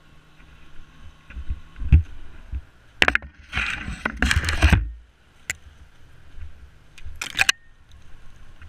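Dry brush and branches scraping and snapping against a helmet camera and quad as the quad lurches and tips sideways in a ditch. There is a thump about two seconds in, a long scraping rush for a couple of seconds after that, a sharp crack, and another short burst of scraping near the end.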